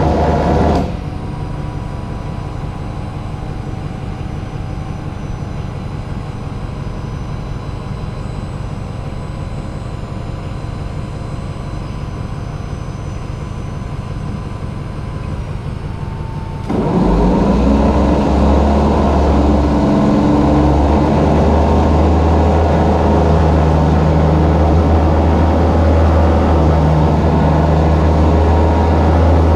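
A motor running steadily with a low, engine-like rumble. It drops slightly about a second in, then grows louder and deeper about 17 seconds in and holds there.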